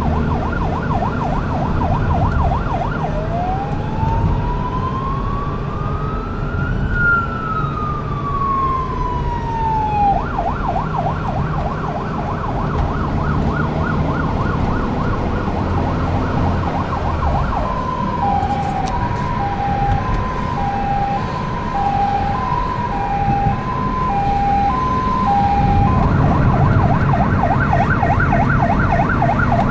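Fire engine's electronic siren on an emergency run, cycling through its tones. It starts on a fast yelp, about 3 s in switches to one slow wail that rises for about four seconds and falls for three, then returns to the yelp. About 18 s in it changes to a hi-lo two-tone for about eight seconds, then goes back to the fast yelp, all over a low engine and road rumble.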